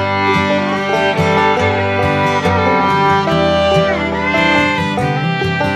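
Background music: a fiddle tune with guitar accompaniment.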